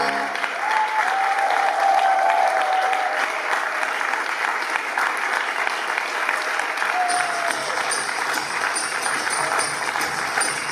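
A theatre audience applauding, with a few cheers early on. About two thirds through, music with a light jingling beat starts up again under the clapping.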